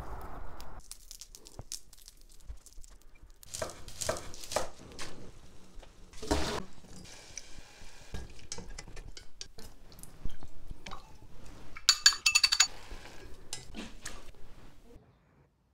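Cooking sounds of spoons and chopsticks knocking and scraping against a steel saucepan and bowls, with stirring. About twelve seconds in, a short run of clinks rings out as metal.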